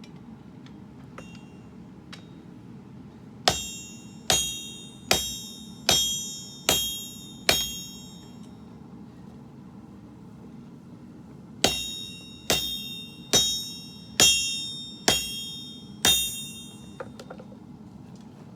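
Hammer blows on steel over an anvil, each strike ringing metallically and dying away. Two runs of six even blows, a little under a second apart, with a pause of about four seconds between the runs.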